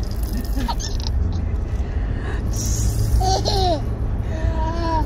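Baby laughing and babbling in a few short bursts, with a low steady rumble of the car underneath.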